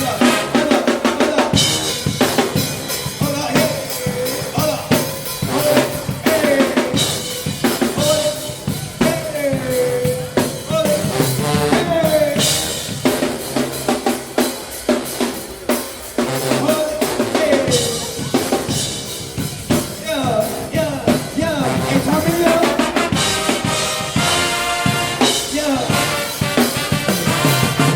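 Drum set played fast and loud, with bass drum, snare and rimshots, in a drum-kit groove or solo.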